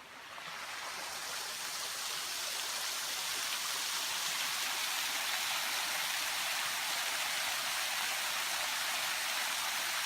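Rain-swollen creek rushing over rocks, a steady even noise of running water that grows louder over the first couple of seconds and then holds. The creek is running high after about two inches of overnight rain.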